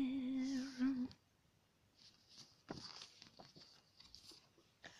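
A woman's voice holds a hum for about a second. Then comes faint paper and card rustling with small taps as a kpop album's photobook and its inserts are handled.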